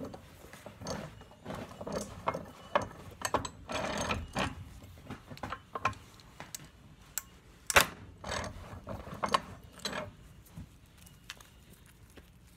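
A butternut shell being crushed in a bench vise: irregular clicks, creaks and cracks as the jaws close on it, with the loudest sharp crack about two-thirds of the way through. After that come a few small clicks as the broken shell is handled, then it goes quiet near the end.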